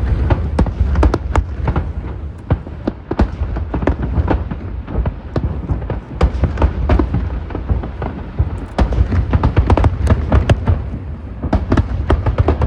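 Fireworks display: a dense, irregular barrage of sharp cracks and booming bursts over a continuous deep rumble.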